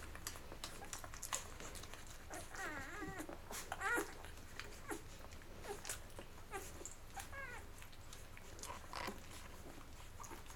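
Eleven-day-old chocolate Labrador puppies nursing, with faint scattered suckling clicks and smacks. A few short, wavering high squeaks from the puppies come about three, four and seven seconds in.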